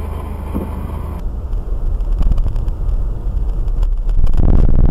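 Road and engine noise inside a moving car, as picked up by a dashboard camera's microphone: a steady low rumble that grows louder about four seconds in.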